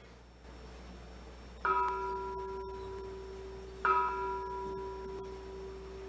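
A meditation bell struck twice, about two seconds apart, each note the same pitch and ringing on slowly with higher overtones above it. It opens a period of silent meditation.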